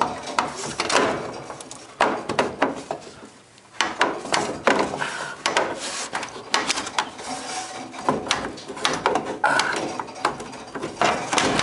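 Sheet-metal lower access panel of a 1970s Sears dishwasher being worked loose and pulled off by hand: a run of knocks, clicks and rattling scrapes, with a short lull about three seconds in.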